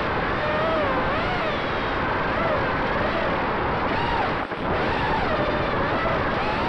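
FPV racing quadcopter's brushless motors (Emax RS2205 2600KV spinning GemFan 5050 tri-blade props) whining in flight, heard from on board, the pitch rising and falling constantly with the throttle. About four and a half seconds in the sound dips briefly, as for a quick throttle chop.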